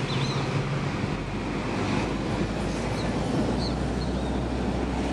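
A moving vehicle: a steady rush of wind noise over a low, even engine hum.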